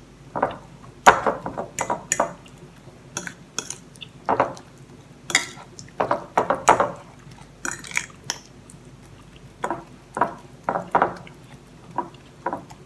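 Metal fork mashing ripe bananas on a plate: the tines clink and scrape against the plate in irregular strokes.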